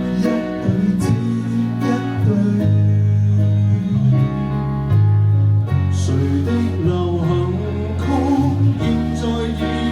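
Live band playing the instrumental intro of a Cantonese pop song: strummed guitar chords over held bass notes that change every second or so.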